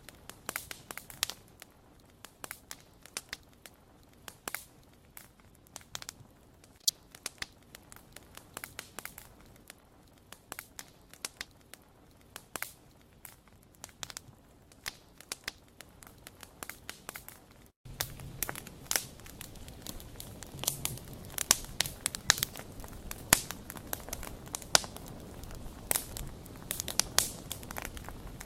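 Wood fire crackling, with many small irregular pops and snaps over a soft hiss. About two-thirds of the way through there is an abrupt cut, after which the fire is louder and fuller.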